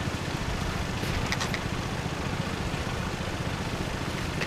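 A van's engine idling with a steady low rumble, plus a few faint clicks about a second and a half in.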